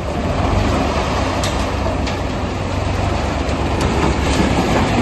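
Tractor-mounted self-loading concrete mixer at work: the tractor engine runs with a steady low rumble while the PTO-driven machinery rattles, with a few sharp metallic clanks scattered through.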